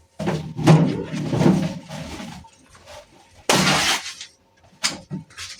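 Paper kitchen towel being handled, then torn off with a short, loud rip about three and a half seconds in, followed by a couple of light taps.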